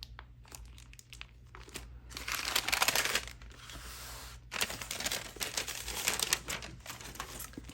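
Packaging being handled and unwrapped, crinkling in bursts that start about two seconds in and are loudest near the middle.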